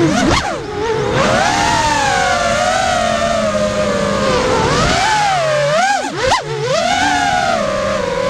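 Motor whine of a QAV-R 5-inch racing quadcopter's four Lumenier 2206 2300KV brushless motors spinning DAL 5-inch bullnose props, heard from the onboard camera. The pitch rises and falls steadily with throttle, then drops sharply and snaps back twice, once near the start and once about six seconds in, as the throttle is chopped and punched for flips.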